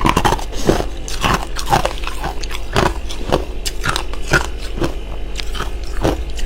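Freezer frost being bitten and chewed: a run of crisp crunches, about two a second.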